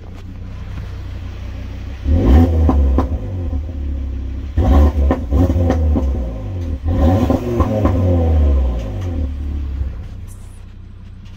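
Audi RS3's five-cylinder engine running, with three loud surges of revs about 2, 4.5 and 7 seconds in, each sweeping up and falling back. It settles to a steadier, quieter run near the end.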